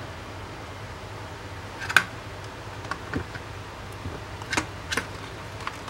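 Small clicks and taps of hands working on the opened GPS unit and its battery during a battery swap, the sharpest about two seconds in and a few lighter ones after, over a steady low hum.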